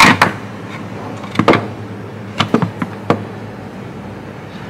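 Irregular clicks and knocks of small parts and tools being handled while an electronic GPS reference unit is taken apart, the loudest knock right at the start.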